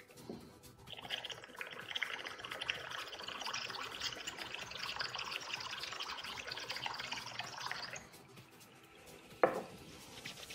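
Aerosol perfume spray hissing steadily into a bowl of soapy water for about seven seconds, with a fine bubbling crackle as gas-filled foam builds up. A single sharp knock near the end as the can is set down on the table.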